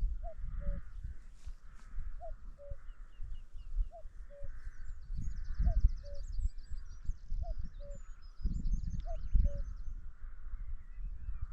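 A common cuckoo calls its two-note "cuck-oo" over and over, about every two seconds, six times in all. Smaller birds sing fainter, higher twittering trills, and wind rumbles on the microphone.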